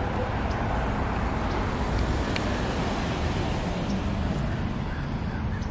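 Steady street traffic noise: cars driving past on the road.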